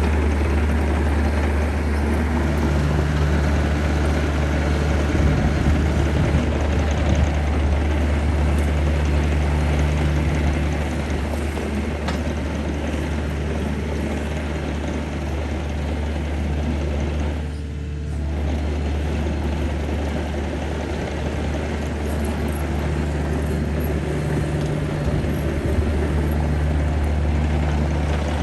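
The diesel engine of a 2021 Komatsu PC80MR mini excavator running steadily with a deep drone. A slightly higher hum rises and fades several times.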